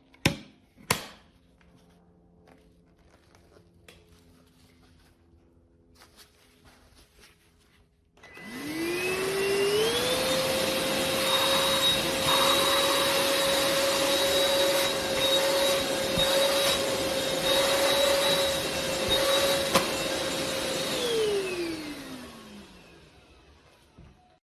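Two sharp clicks, then the elezon A200 cordless stick vacuum's motor spins up about eight seconds in, its whine rising in two steps to a steady high pitch over a loud rush of air. It runs steadily for about eleven seconds, then is switched off and winds down with a falling whine.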